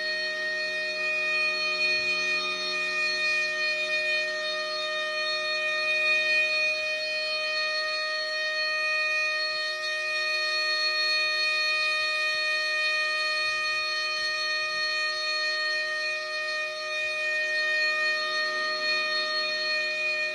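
CTI SMO-15 outdoor warning siren sounding a steady tone, holding one pitch made of several tones, with gentle swells in loudness.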